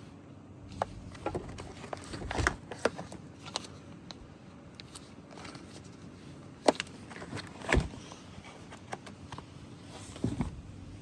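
Scattered clicks, taps and knocks of the dead pedal's parts and hardware being handled, over a low steady hum, with a couple of sharper knocks about two-thirds of the way in.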